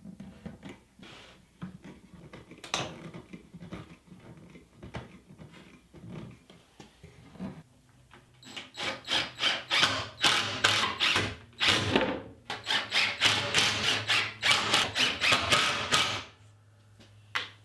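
A cordless impact driver driving screws into plywood: a fast run of loud, rapid rattling strokes from about eight seconds in until just before the end. Before that there are only scattered quiet clicks and knocks of boards and a clamp being handled.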